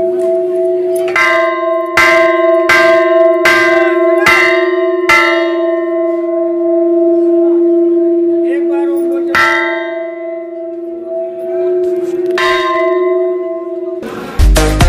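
Large hanging temple bell (ghanta) struck repeatedly: about six strikes under a second apart, then two more spaced out. Its deep ringing hum carries on between the strikes.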